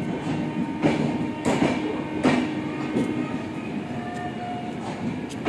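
Indian Railways sleeper coaches rolling past, their wheels clacking over rail joints in a regular beat a little more than once a second over a steady rumble. The clacks weaken after about three seconds.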